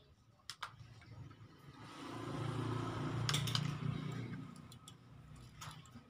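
An engine passing by, swelling up over about a second and a half and fading away again, with a few light clicks around it.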